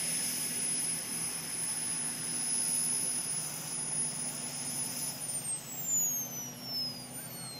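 Small gas-turbine engine of a radio-controlled model helicopter running with a high, steady whine. About five seconds in the whine starts falling steadily in pitch as the turbine spools down.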